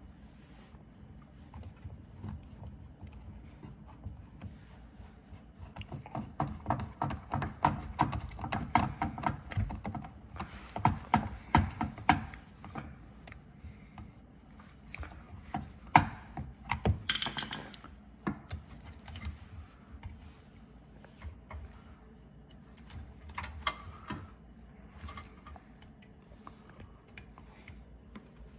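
Hand tools and metal and plastic parts clicking and clattering as a dishwasher's pump assembly is worked on. There are dense runs of rapid clicks between about six and twelve seconds in, a sharp knock about sixteen seconds in, a short scraping rustle just after it, and then scattered clicks.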